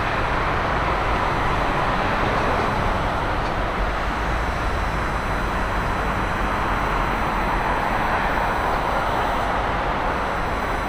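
Jet engine noise from a McDonnell Douglas MD-11F's three engines on final approach: a steady rushing roar that holds level throughout.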